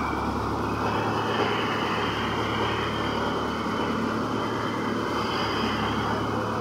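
Paddy thresher running steadily while bundles of paddy are fed into it: a constant, even machine drone with a steady low hum.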